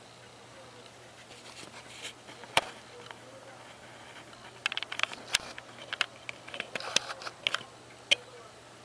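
Irregular sharp clicks and crackles, bunched mostly in the second half, with two louder single snaps, one a few seconds in and one near the end.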